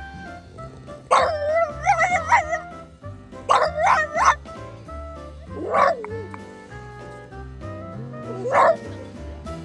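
French bulldog howling in a tantrum: four bouts of wavering, pitched yowls, the first and longest about a second in, over background music.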